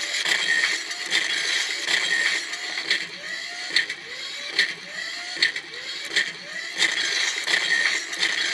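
Mega Stomp Panic motion-sensing soundboard playing step-triggered stomping sound effects through its small speaker. There is a mechanical clank with a short rising tone about every 0.8 s, one for each simulated step.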